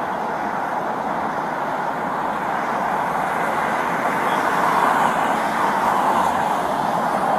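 Steady noise of interstate traffic passing, growing louder about halfway through as a vehicle goes by.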